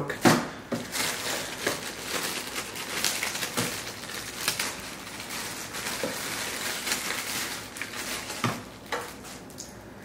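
Plastic parts bags crinkling and rustling as they are handled in a cardboard kit box, with small clicks and taps among them. It dies down near the end.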